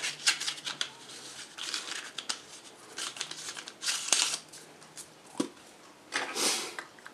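Hands handling a camera lens with a rubber lens hood and plastic lens caps on a wooden table: scattered clicks and taps with rubbing, rustling scrapes.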